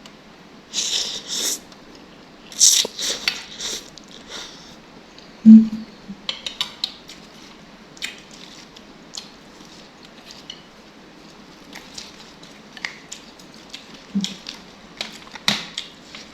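Eating noodle soup: utensils clicking and knocking against a bowl, with a few short noisy bursts of slurping in the first four seconds and one loud thump about five and a half seconds in.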